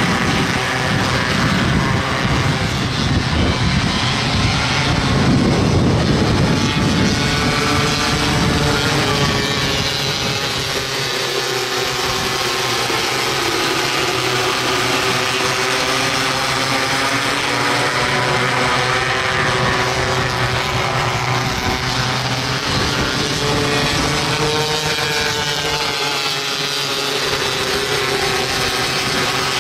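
Pack of 270cc micro sprint cars racing on a dirt track, several engines at high revs at once. Their pitch rises and falls as the cars accelerate down the straights, lift for the turns and pass by, and the sound is loudest a few seconds in.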